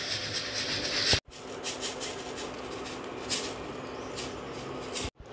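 Puffed rice grains rustling with light scattered crackles as they are stirred in the pan, over a faint steady hum. The sound drops out abruptly just after a second in, and again near the end.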